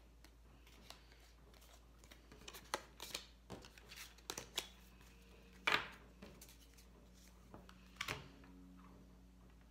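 Tarot cards being gathered up and stacked on a wooden table: scattered slides, taps and rustles of card stock, the loudest a sharp tap just past the middle and another near the end.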